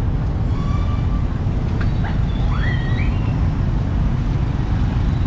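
Steady low rumble of street traffic and motorbikes, with a few short rising, whistle-like tones in the middle.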